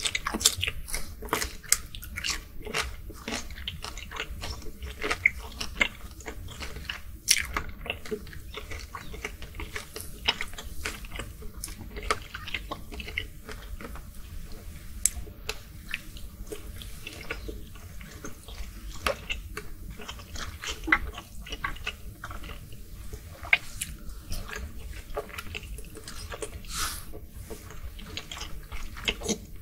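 Close-miked chewing and biting of cooked shrimp and imitation shrimp: a dense, irregular run of short mouth clicks and smacks.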